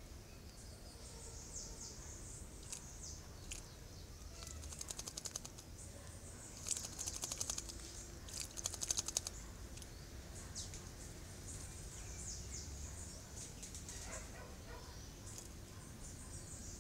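A bird bathing in a shallow pool, fluttering its wings in the water in three quick bursts of splashing, each about a second long, around the middle. Faint high chirps sound in the background.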